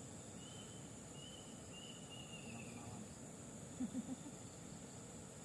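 Faint outdoor ambience of insects giving a steady high-pitched drone, with a few short whistles in the first half, the longest falling slightly, and two or three brief low sounds about four seconds in.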